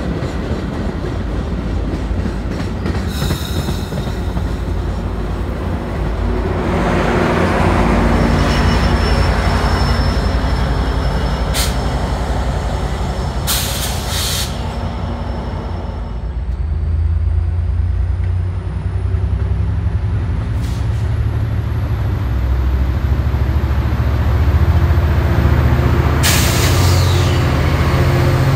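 Metra F59PHI diesel locomotive and its bilevel commuter coaches rolling past, a steady low engine rumble that grows louder about halfway through as the locomotive passes close. A few brief loud hissing bursts break through, and a thin high wheel squeal sounds faintly for a few seconds in the middle.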